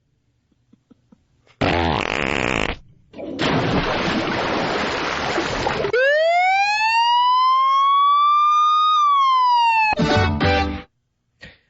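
A string of edited sound effects. After a short silence comes a brief noisy burst, then a rushing noise, then a siren-like whistling tone that rises slowly for about three seconds and drops over about a second. It ends in a short buzzing, fart-like blast.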